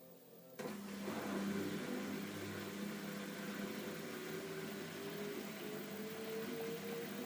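Direct-drive LG F12A8CDP washer-dryer running, its drum speeding up. A steady mechanical noise starts suddenly just after half a second in, with a motor whine that slowly rises in pitch.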